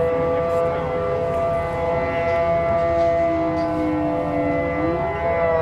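Outdoor tornado warning sirens wailing, several held tones sounding at once, one of them sliding lower and rising back near the end, over a steady low rumble.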